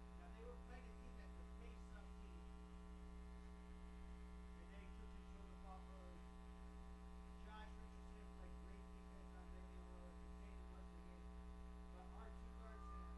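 Steady electrical mains hum, a low buzz with many even overtones that stays level throughout, with faint indistinct voice traces underneath.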